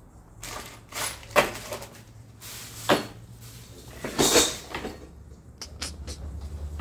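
Handling noise on a table: about five separate knocks and short rustles of boxes, plastic wrap and kitchenware being moved, over a steady low hum.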